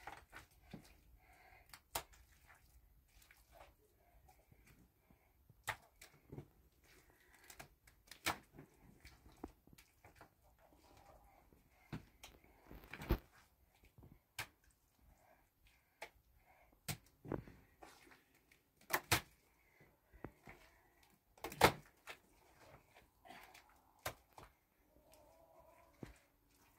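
Scattered knocks and taps at uneven intervals, every second or two, from hands-on work building a stove; the loudest knock comes about four-fifths of the way through.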